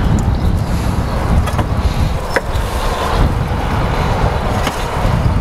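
Steady low rumbling noise with a few light knocks as slabs of smoked ribs are lifted off a wire rib rack and set down on the smoker's grate.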